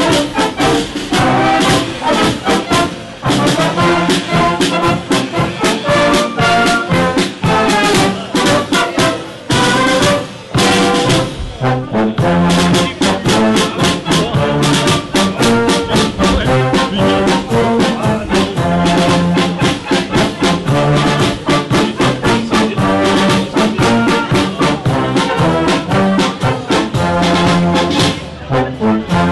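Wind band of brass and clarinets playing a tune with a steady beat.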